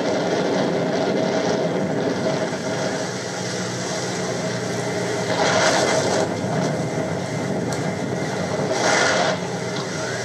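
Boat engine running steadily, with two brief rushes of noise, about five and a half and nine seconds in.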